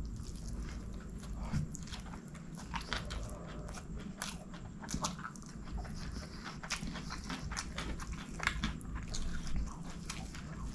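Close-miked chewing and mouth sounds of a person eating a mouthful of rice and curry by hand, with many short, sharp clicks throughout.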